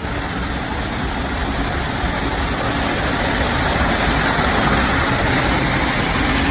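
Cars driving through deep floodwater on a street: a steady rushing wash of water pushed aside by the tyres, with engine rumble underneath. It grows slowly louder.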